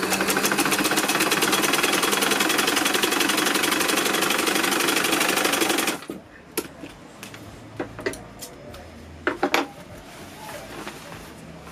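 Sewing machine stitching a seam at speed, a rapid even clatter of stitches that stops suddenly about six seconds in. A few light clicks and knocks follow.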